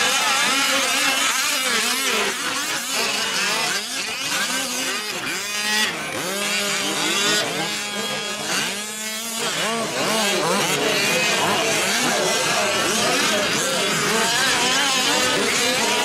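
Several 1/5-scale RC off-road trucks' small two-stroke gas engines revving up and down as they race. Their pitches rise and fall and overlap throughout.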